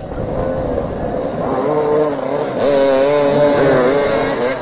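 Several motoball motorcycles' engines revving, their pitch rising and falling as the throttles are blipped. The engines get louder about halfway through.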